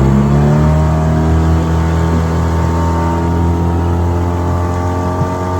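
Hidea 15 hp outboard motor running hard under way with an 8-pitch propeller. Its note climbs just at the start, then holds steady, edging slightly higher.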